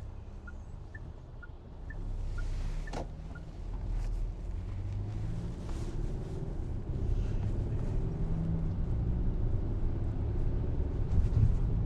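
Car engine and road noise heard from inside the cabin, with the turn-signal indicator ticking about twice a second for the first three seconds or so. After that the engine note rises as the car pulls away.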